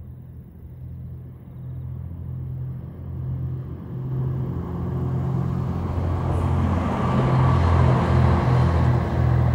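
A train approaching: a low steady hum under rolling noise that grows louder and fuller, loudest about seven to nine seconds in as it passes close.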